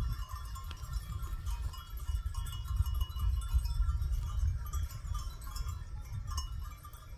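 Wind rumbling on the microphone outdoors, with faint steady ringing tones above it.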